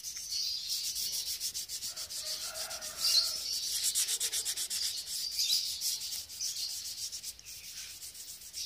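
Fine 1000-grit sandpaper rubbed by hand over the painted steel tube of a motorcycle frame in quick, short back-and-forth strokes. It is smoothing out small specks in the first coat of grey paint before the second coat.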